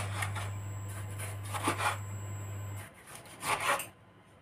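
Kitchen knife slicing through tomatoes on a bamboo cutting board, with three separate sawing strokes that end on the wood. A low steady hum runs under the first two strokes and stops about three seconds in.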